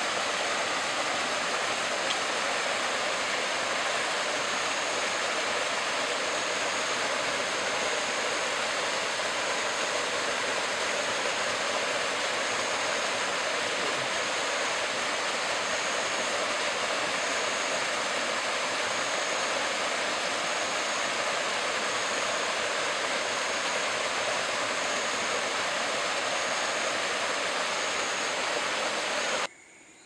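Steady rush of flowing water, with a thin high whine held throughout and a faint high note repeating about every second and a half. The rush cuts off suddenly just before the end.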